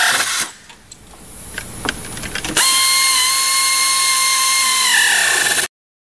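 Pneumatic air ratchet tightening pinch bolts on the boat's engine mount trunnions. Its high whine slows and stops about half a second in. After a pause with a few sharp clicks, it runs again for about three seconds and slows as the bolt snugs down, then cuts off.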